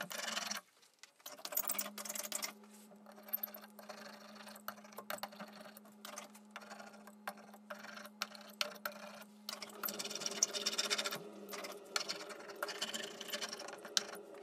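Hand ink brayer rolling over a carved wood relief: tacky ink crackling and clicking under the roller in repeated passes, loudest in bursts about a second in and again near the end.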